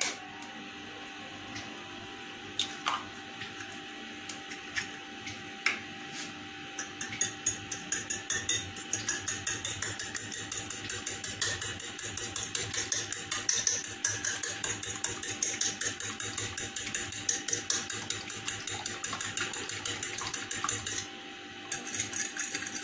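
A fork beating a raw egg on a ceramic plate: rapid clinking of the fork against the plate, starting about seven seconds in and easing off near the end. Before that, a few separate taps as the egg is cracked open with a spoon.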